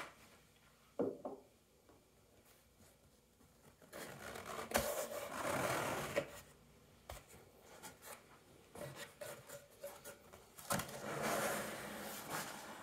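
A cardboard shipping box being opened: a blade slitting packing tape, and cardboard rubbing and scraping as the box is handled and its lid lifted. There are a couple of sharp clicks about a second in, then two rasping stretches, one a few seconds in and one near the end.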